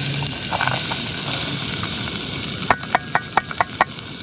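Chopped onions sizzling as they fry in hot oil in a camping cook pot. Near the end there is a quick run of about six light taps.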